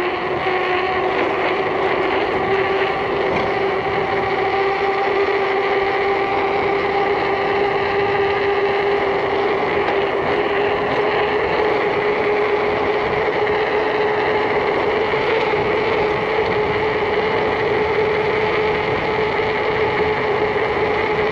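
Mountain bike tyres humming on asphalt at speed: a steady hum that rises slightly in pitch and then holds, over wind rushing past the handlebar-mounted camera.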